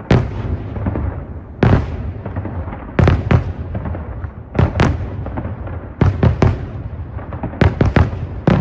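Aerial fireworks shells bursting overhead: a dozen or so sharp booms, singly and in quick pairs and triples, over a continuous rumble of echoing reports.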